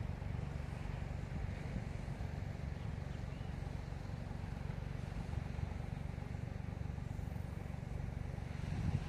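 Steady low engine rumble with a faint even hum in it.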